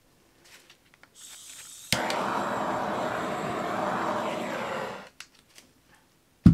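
Handheld gas torch: a faint hiss of gas, a click as it lights about two seconds in, then the flame burning steadily for about three seconds until it is shut off. A loud thump at the very end.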